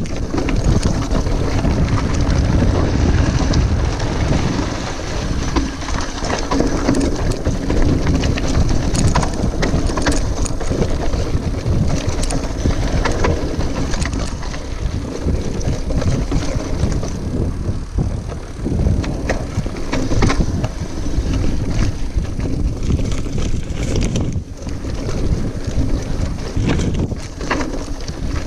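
Wind buffeting the camera microphone while riding a single-speed Specialized Crave SL hardtail mountain bike fast down rocky dirt singletrack, with the tyres rumbling over dirt and rocks and the bike rattling in frequent sharp clicks and knocks.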